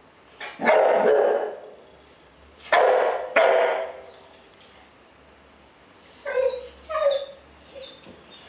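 Bull terrier barking at its own reflection in a water bowl: two pairs of sharp barks in the first four seconds, echoing off the hard floor and walls. Near the end come several shorter, higher-pitched yips.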